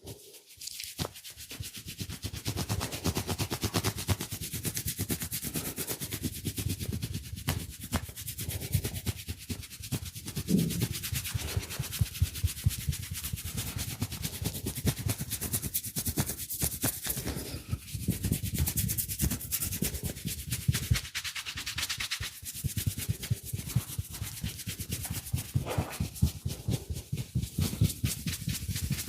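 Hands massaging a head: fast, continuous rubbing and patting of hair and skin, many strokes a second.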